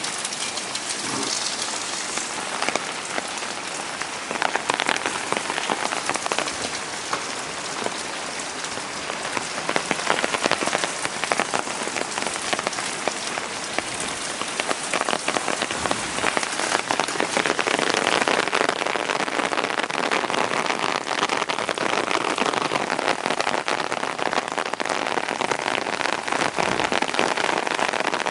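Rain falling steadily onto hard surfaces, a dense hiss of many individual drops, growing louder a little past halfway.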